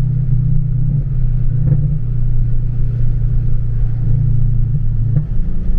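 Scion FR-S's flat-four engine and catless exhaust running in a steady low drone, with two short sharp cracks, one about two seconds in and one near the end.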